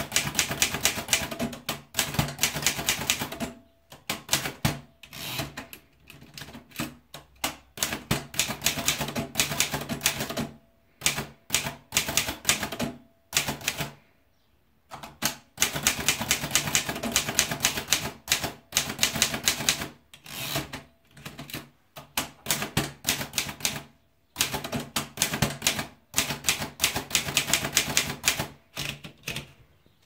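Remington Rand Model 5 portable manual typewriter being typed on: quick runs of key strikes, the typebars clacking against the platen, broken by short pauses, the longest about a second.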